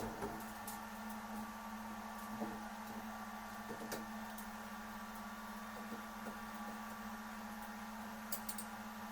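Steady electrical hum from a homemade 3D printer's electronics under test, with a few faint clicks scattered through.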